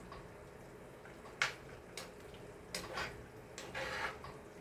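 A few light clicks and knocks of kitchen things being handled, the sharpest about a second and a half in, over a faint steady hum.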